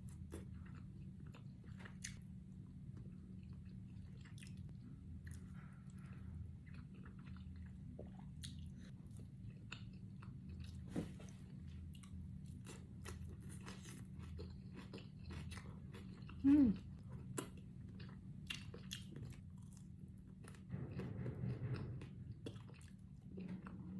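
Close-miked chewing and biting of food, with wet mouth clicks and crunches, over a steady low hum. About two-thirds of the way through there is a brief, louder hum-like voice sound.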